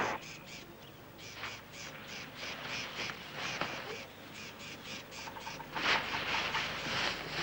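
Insects chirping in a steady fast rhythm, about five chirps a second, with a louder noisy animal sound lasting about a second, about six seconds in.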